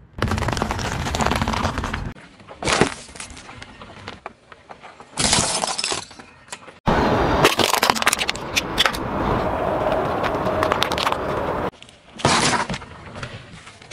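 Car tyre rolling over and crushing small objects one after another: loud crunching, cracking and splintering in several bouts with short quiet gaps between them. The crushed objects include candy-coated chocolates, a bundle of wooden toothpicks snapping, and a zucchini.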